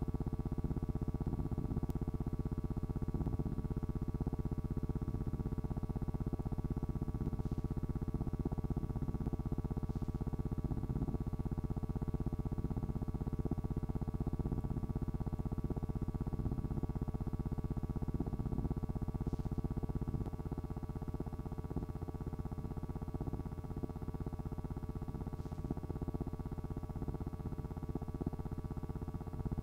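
A steady electrical hum with hiss, holding a few fixed tones and no distinct events; it drops slightly in level about two-thirds of the way through.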